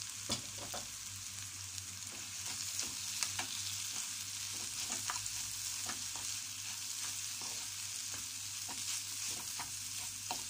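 Scrambled egg and celery stir-frying in a pan: a steady sizzling hiss, with scattered clicks and scrapes of a spatula tossing the food against the pan.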